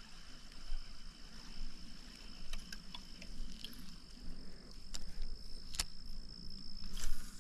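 Steady high-pitched drone of insects in the woods, with a few scattered clicks and knocks, the loudest near the end.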